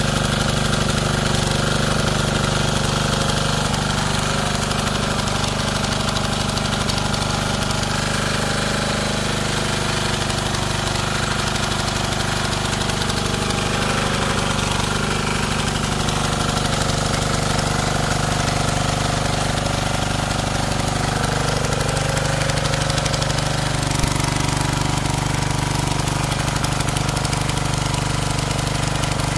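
Bertolini 215 diesel walk-behind tiller's engine running steadily, with small rises and falls in pitch as it works.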